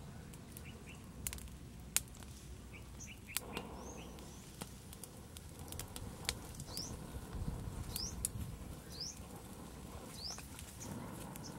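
A small twig fire crackling with scattered sharp pops, while a bird gives short rising chirps about half a dozen times in the background.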